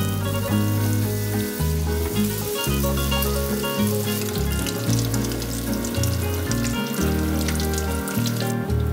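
Battered eggplant pieces deep-frying in oil at about 165–170 °C, a steady sizzle with many small crackles, during the first fry. Background music plays under it.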